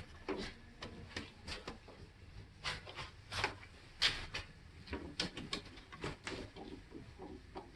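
Microfiber towel buffing dried wax off a car's painted hood: irregular rubbing strokes with a few sharper swipes, the wax coming off the paint.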